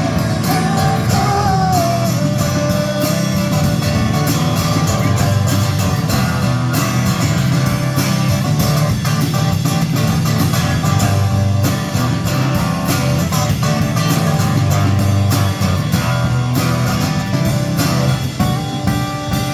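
Band playing an instrumental passage of a French song, led by guitar, with a steady beat.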